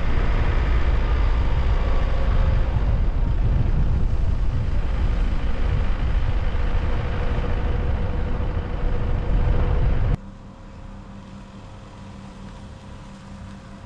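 Car driving, with a steady rumble of engine and road noise that cuts off abruptly about ten seconds in, leaving a quieter steady low hum.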